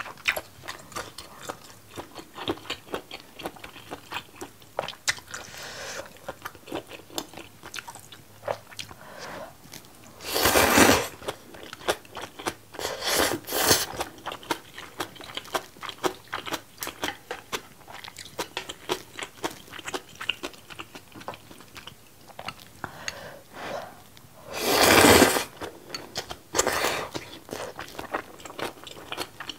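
Close-miked mukbang eating sounds: wet chewing and mouth clicks throughout, over noodle soup with seafood. Two long, loud slurps stand out, one about ten seconds in and a bigger one about twenty-five seconds in, with shorter ones around thirteen seconds.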